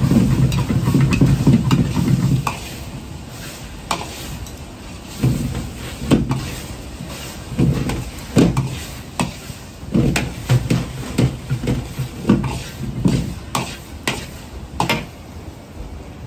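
Metal ladle scraping and clanking against a carbon-steel wok as scrambled eggs and shredded leek are stir-fried, with sizzling underneath. A steady low rumble fills the first two seconds or so, then comes a run of irregular sharp knocks and scrapes as the ladle strikes the pan.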